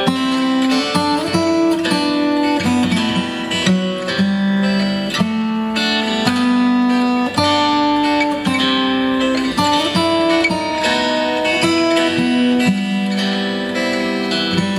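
Steel-string acoustic guitar played with the fingers, a melodic instrumental passage of plucked notes over held bass notes.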